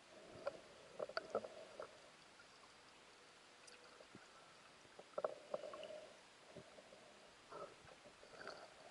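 Faint muffled clicks, knocks and gurgles heard underwater, in short clusters about a second in, around five seconds in and near the end, over a low steady hiss.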